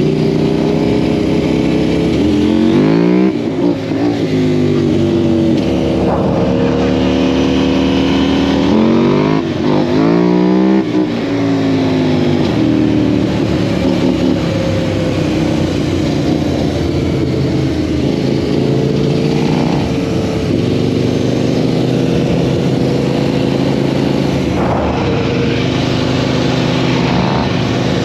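KTM 790 Duke parallel-twin engine swapped into a sport quad, running loud under way with its pitch rising and falling with the throttle. Twice, about three seconds in and again about ten seconds in, it revs up and drops back in quick sweeps.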